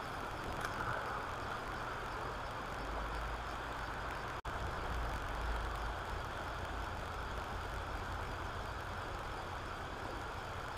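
Steady rush of river water running over a shallow riffle, with a low rumble swelling from about three seconds in to about six. The sound drops out for an instant a little past four seconds.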